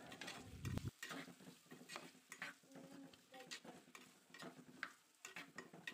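A metal spatula stirs sliced onions frying in oil in a clay pot, making faint, irregular scrapes and clicks.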